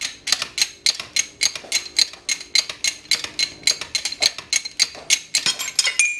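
Shop press being worked to push a shaft out of a ball bearing, with rapid, even metallic clicking at about four clicks a second. A short ring sounds near the end as the bearing comes free.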